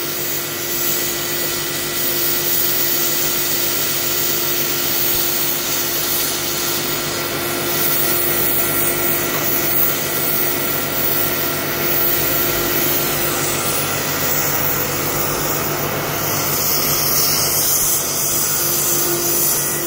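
Oxy-fuel gas cutting torch running steadily, its flame and cutting-oxygen jet hissing without a break as it cuts through a steel plate.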